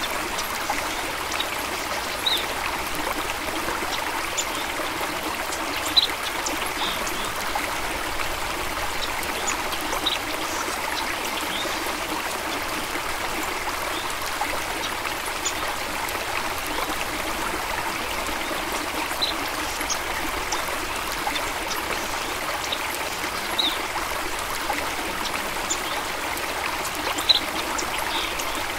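A small stream of water trickling and babbling steadily, with a few brief brighter splashes or drips now and then.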